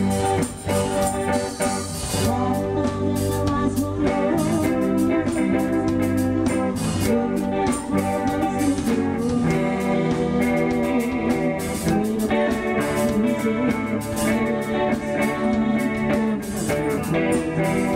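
Live band playing a song: guitar, keyboard and drum kit, with a woman singing into the microphone.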